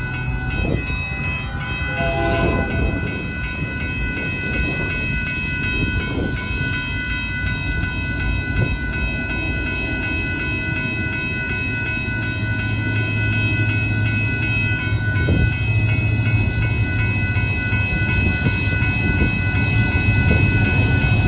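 Union Pacific freight train approaching and rolling past, its rumble and rattle growing louder toward the end, with a low engine drone coming in about halfway through. A steady high ringing sounds over it.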